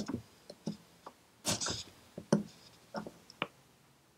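Steel pick clicking and scraping against the cast metal of a Citroën 2CV oil pump cover while prying the old O-ring out of its groove, in about ten short irregular clicks with a longer scrape about a second and a half in. The old rubber O-ring has gone very hard.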